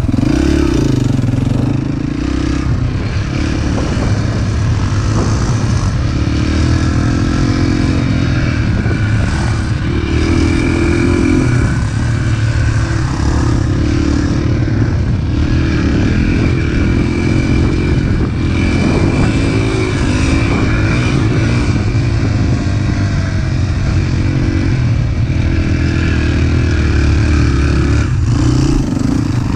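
Dirt bike engine running hard under the rider, its pitch rising and falling repeatedly with throttle and gear changes as it is ridden along a dirt trail.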